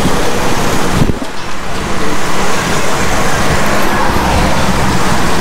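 Motor scooter riding through street traffic, with wind rushing over the microphone and the noise of the road and passing vehicles.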